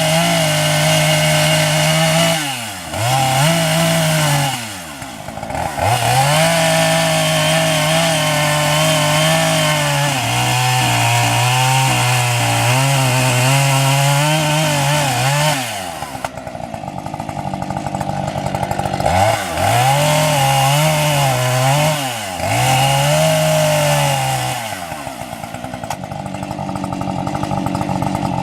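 Husqvarna 550 XP two-stroke chainsaw cutting arbutus firewood rounds at high revs. The revs dip briefly twice early on and sag under load during a long cut in the middle. In the last third it is revved up and down several times, then runs lower near the end.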